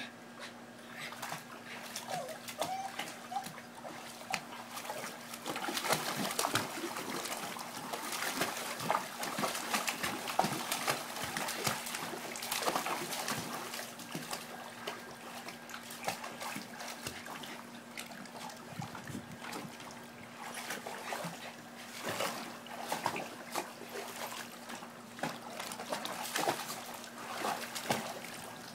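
Water splashing and sloshing in a shallow plastic kiddie pool as two small dogs walk and paddle through it, heaviest through the middle stretch.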